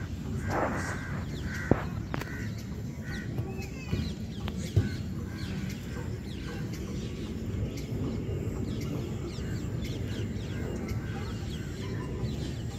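Birds chirping and calling over a steady low outdoor rumble, with two sharp thuds, about two seconds in and again about five seconds in.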